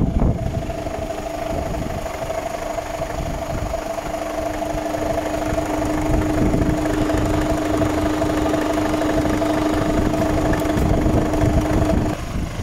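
Mercedes-Benz Actros 1842's straight-six diesel engine idling steadily, heard from the open front service flap, with a constant hum that stops shortly before the end.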